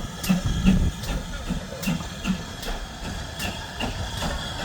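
Steam train on the move, with a regular beat about two and a half times a second over steady steam hiss.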